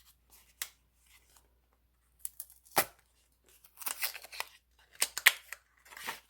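A flashlight's retail box and paper packaging being opened by hand: tearing and rustling, with several sharp clicks and snaps, the loudest about three seconds in.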